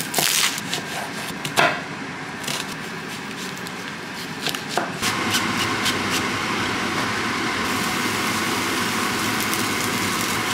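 A few scattered knocks of a knife chopping onion on a wooden chopping board. About five seconds in, a steady sizzle starts in the non-stick frying pan as the oil and diced onion fry.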